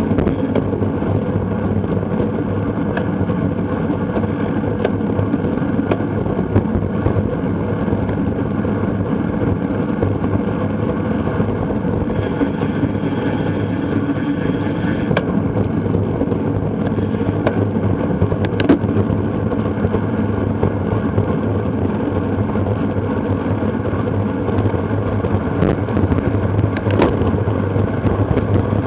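Steady wind and road noise on a bicycle-mounted action camera's microphone while racing at speed, with a few sharp clicks.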